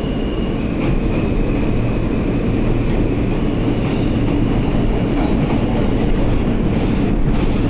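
New York City subway car running, heard from inside the car: a steady rumble of wheels on rail, with a faint high whine in the first few seconds and a few clicks.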